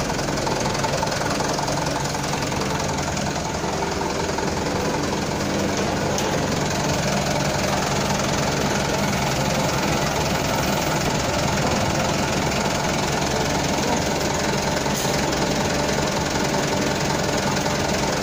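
Engine running steadily, an even mechanical drone that holds the same pitch and level throughout, supplying the hydraulic system that works the jack cylinder.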